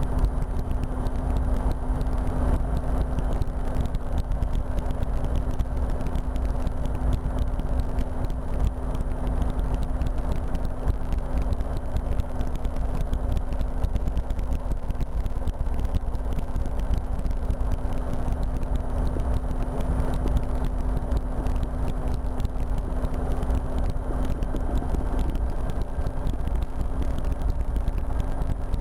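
A RotorWay experimental helicopter in steady forward flight, heard from the cockpit: a constant drone of engine and rotor with a deep rumble and an unchanging low hum.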